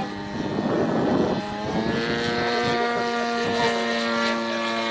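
Giant-scale RC MX2 aerobatic plane's DLE 120 twin-cylinder two-stroke petrol engine and propeller droning steadily in flight overhead. A rush of wind noise lasting about a second comes near the start.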